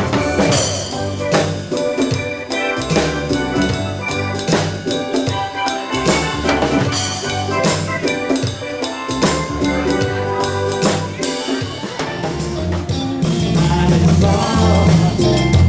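Live band playing an instrumental passage with no singing, the drum kit prominent over a moving low bass line.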